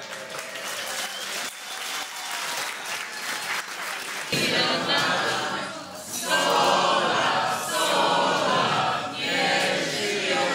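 A crowd of wedding guests clapping and cheering, then about four seconds in breaking into a group song together, many voices singing at once.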